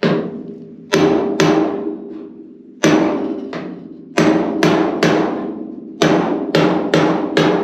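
A hammer driving a makeshift drift up against the underside of an old coupe's caved-in steel roof, working the dent back out to restore the roof's curve. About a dozen sharp blows come in uneven groups, and the sheet metal rings briefly after each one.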